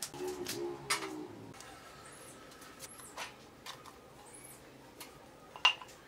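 A few sharp taps and knocks, the loudest shortly before the end, with short high chirps scattered in between.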